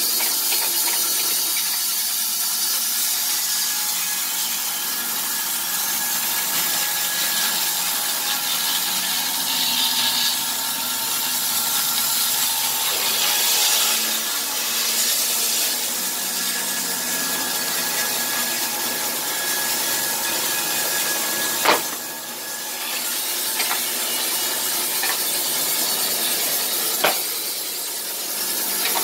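Electric Wood-Mizer LT15 band sawmill's blade cutting lengthwise through a log: a steady hiss with a faint whine. A few sharp knocks come in the last third.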